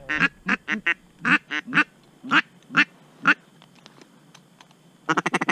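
Duck call blown in short, loud quacks: a quick string at the start, then single quacks about every half second, stopping about three and a half seconds in before another fast string near the end.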